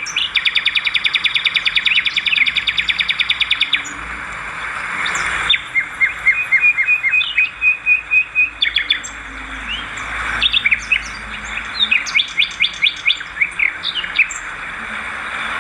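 Swiftlets twittering: quick trains of sharp, high chirps over a steady dense chatter. It opens with a fast trill, then breaks into separate chirp series, and the pattern switches abruptly a few times.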